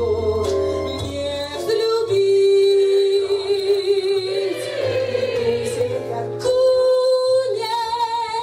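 A woman singing solo into a microphone, holding long notes that bend in pitch, over a low steady musical backing.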